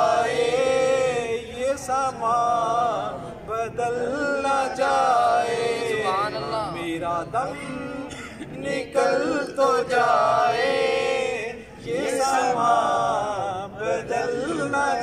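A male voice singing an Urdu naat unaccompanied, in long, melismatic held phrases with brief pauses for breath between them.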